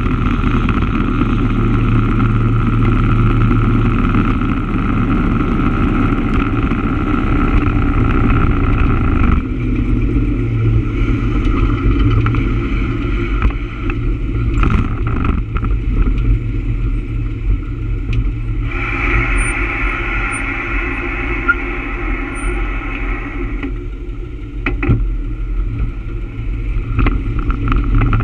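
Engine and road noise of a vehicle under way: a steady low drone that eases off about a third of the way in, picks up again for a few seconds around two-thirds in, then eases again as traffic slows toward a signal.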